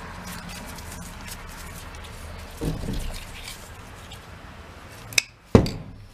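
Nitrile-gloved hands rustling and rubbing as they pull apart the white filler strands inside a stripped power-tool cord. Near the end come two sharp clicks as metal side cutters are picked up.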